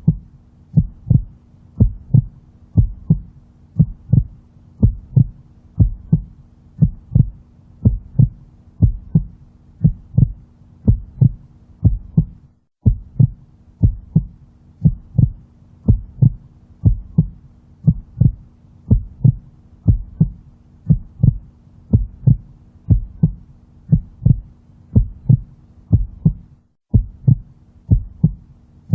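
Heartbeat sound: a steady double lub-dub thump, roughly once a second, over a faint steady hum. It breaks off for an instant twice, near the middle and near the end.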